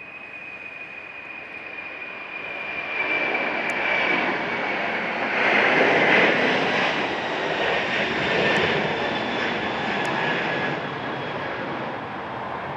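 Boeing 747's four General Electric CF6 turbofans at takeoff thrust, growing louder to a peak about six seconds in as the jet passes, then easing off. A high fan whine over the roar slowly drops in pitch.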